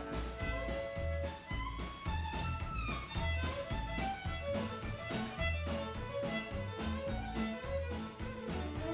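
Instrumental background music with a steady beat, a bass line and melody instruments.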